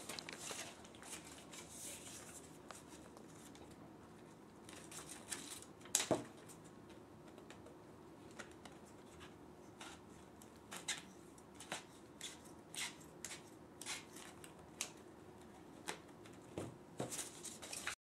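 Scissors snipping through black foam, a scattered series of faint cuts with soft handling rustles between them, and one louder knock about six seconds in.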